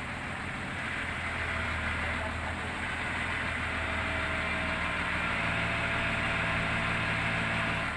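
Heavy diesel engine running steadily, its note shifting and growing a little louder about halfway through.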